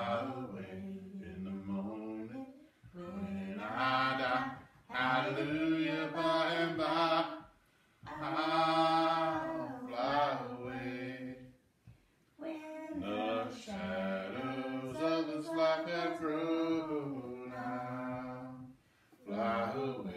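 A hymn sung a cappella, no instruments, in long held phrases with short breaths between them.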